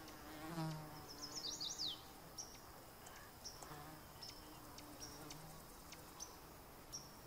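Faint outdoor ambience: an insect buzzing in a low drone that comes and goes, with scattered short high bird chirps and a quick run of falling chirps about a second in.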